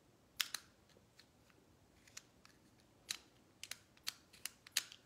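A scattering of sharp, light clicks at irregular intervals, several in quick pairs.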